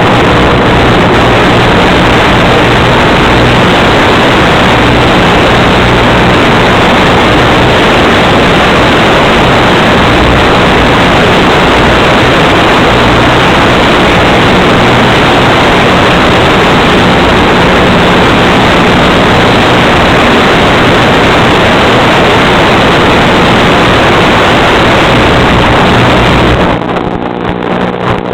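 Loud wind noise rushing over the microphone, with a faint steady low hum beneath; it drops away briefly near the end.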